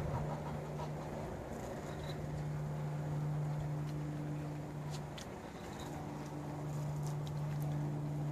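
Orange Manx cat purring steadily close by, the purr dipping briefly about two seconds in and again about five seconds in.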